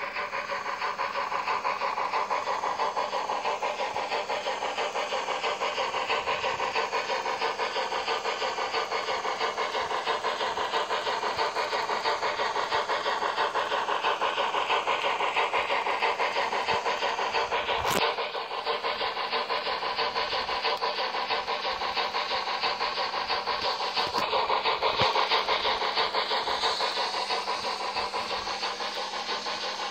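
Digital steam-locomotive sound from the Zimo MX658N18 sound decoder of a TT-scale BR 95 model, played through its small speaker: a steam engine running with steady chuffing that starts suddenly. A sharp click comes about 18 seconds in.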